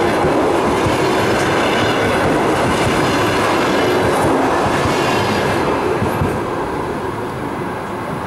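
Passenger coaches of an express train rolling past at close range, a steady noise of steel wheels on rail that fades over the last couple of seconds as the end of the train goes by.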